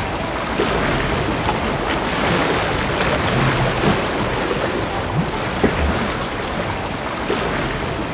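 Sea ambience: a steady rushing wash of ocean water and wind, with a few brief splashes.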